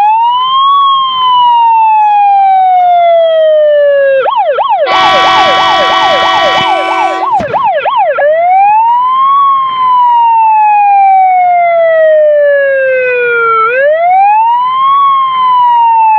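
Jelcz 422 fire engine's siren sounding a slow wail, each cycle rising in about a second and falling over about four seconds. About four seconds in it switches to a fast yelp, with a steady horn blast over it for about two seconds, then goes back to the wail.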